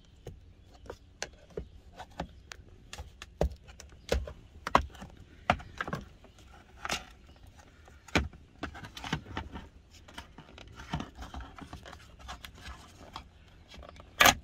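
Flat screwdriver prying at the plastic housing of a Thermo King APU dash controller, which is then handled and opened: a string of irregular clicks, scrapes and plastic snaps, with one sharp, loud click near the end.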